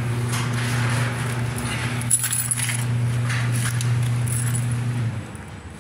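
Garage door opener running with a steady low hum, with scattered metallic clinks and rattles. The hum stops near the end.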